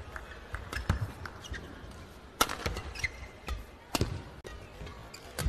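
Badminton rally: a series of sharp racket strikes on the shuttlecock at irregular intervals, several loud ones and some softer, with short squeaks of players' shoes on the court between them.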